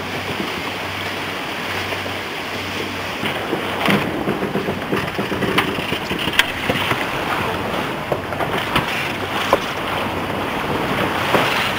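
Wind buffeting the microphone and water washing against a boat's hull on open water, with a steady low hum and scattered short knocks.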